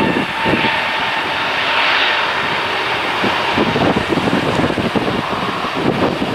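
Airbus A320neo's Pratt & Whitney PW1100G geared turbofan engines running as the jet rolls along the runway: a steady jet noise that swells a little about two seconds in, with gusts of wind buffeting the microphone underneath.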